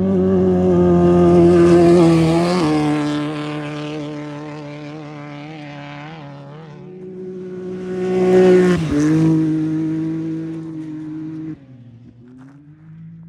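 Two off-road race vehicles go by at speed one after the other, each engine holding steady revs, with its pitch dropping as it passes: the first about two and a half seconds in, the second about nine seconds in. Near the end the sound drops suddenly to a quieter engine.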